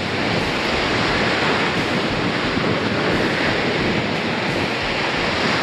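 Steady rush of lake surf breaking on a sandy beach, with strong wind buffeting the microphone in irregular low rumbles.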